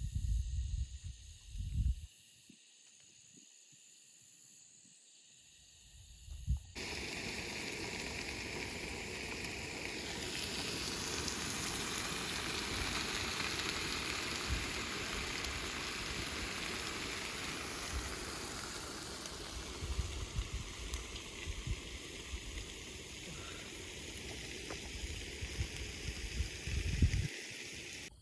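Faint steady insect chirping with a few low knocks, then suddenly meat frying on hot cookware over the campfire: a loud, even sizzle with scattered pops that runs on to the end.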